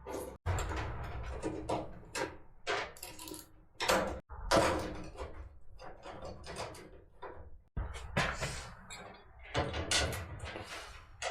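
Metal rolling toolbox being handled: knocks, clunks and the sliding and banging of its drawers, in a rapid run of sharp impacts cut off abruptly several times.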